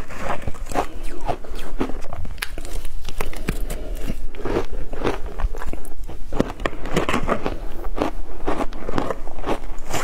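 Ice coated in matcha powder being bitten and chewed close to the microphone: a dense, irregular run of sharp crunches.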